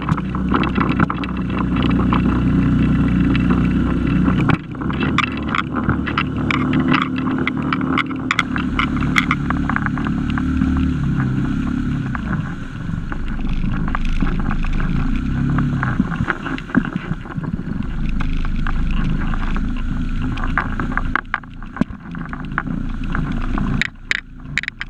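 Outboard motor of a small inflatable Zodiac running steadily under way while trolling, with irregular knocks and clicks over it.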